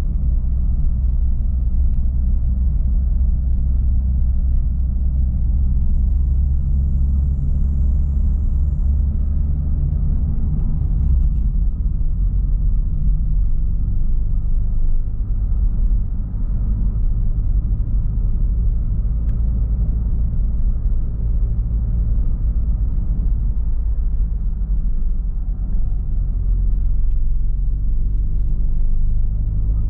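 A motor vehicle's engine running steadily, a loud low rumble that holds almost unchanged throughout.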